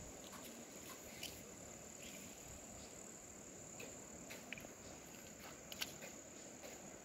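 Faint, steady high-pitched insect chorus droning without a break, over a soft hiss, with a few faint ticks.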